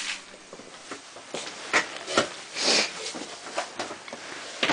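Scattered handling sounds while horse feed is being prepared: a few sharp knocks and clatters, with a short rustle just before the middle.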